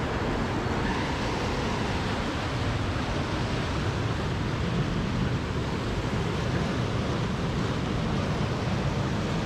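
Steady rushing noise of wind on the microphone and moving water, even throughout with no distinct events.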